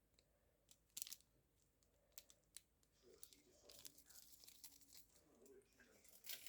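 Faint crinkling and tearing of packaging being handled, with scattered sharp clicks; the rustling grows busier from about halfway through.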